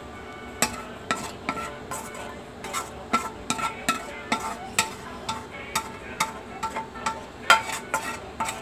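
A metal spoon scraping and knocking against a black wok, a quick irregular run of clinks with a short metallic ring, as the last curdled-milk (paneer) curds are scraped out into a strainer.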